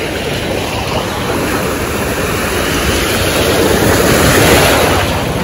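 Gentle surf washing in shallow seawater, mixed with wind buffeting the microphone; the wash builds to a peak about four seconds in, then eases.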